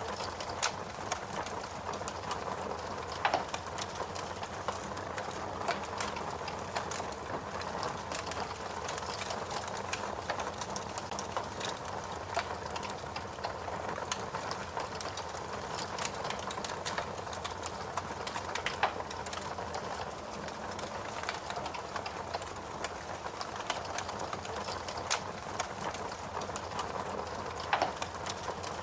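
Wood fire crackling steadily, a soft hiss of flames with many small sharp crackles and a few louder pops.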